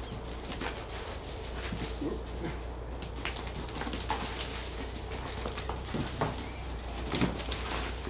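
A dog's paws thudding and scuffing irregularly on a loose dirt arena floor as it runs, turns and pounces, with the loudest knocks near the end.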